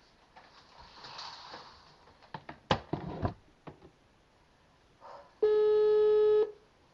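A few clicks on a telephone line about two and a half seconds in, then a single steady ring tone about a second long near the end: the ringback tone heard while a call rings through.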